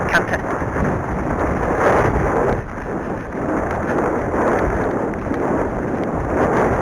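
Heavy wind rumble on the microphone of a rider cantering on an Arabian horse, with the horse's canter stride faintly under it.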